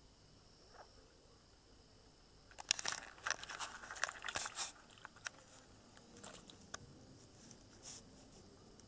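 Rustling and crackling close to the microphone, like something being crumpled or handled, starting about two and a half seconds in after a quiet start and thinning out after about five seconds.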